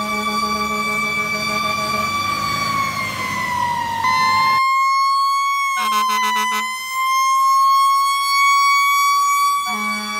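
Fire truck siren holding a steady high wail. It slides down in pitch a few seconds in, jumps back up, and pulses rapidly for about a second near the middle.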